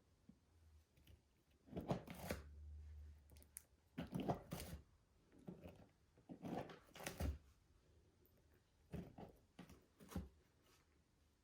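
Slime being mixed and squished: a series of short, wet squelching and crackling bursts, about six in all, with pauses between them.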